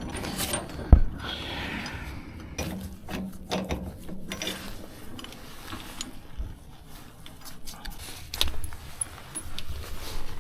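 Irregular mechanical clicks, clunks and rattles of equipment being handled, with one sharp knock about a second in.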